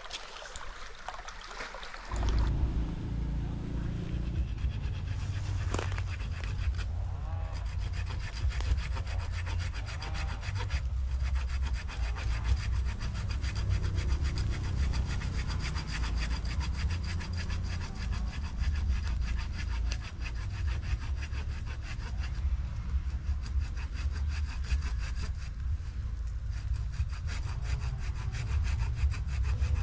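A saw cutting through bamboo, starting about two seconds in and carrying on steadily.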